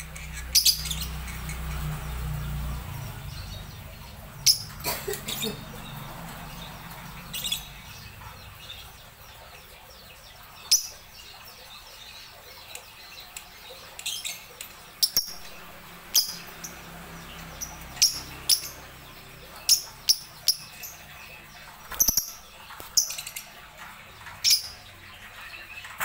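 Lovebirds chirping: short, sharp, high calls, singly and in quick runs of two or three, coming more often in the second half.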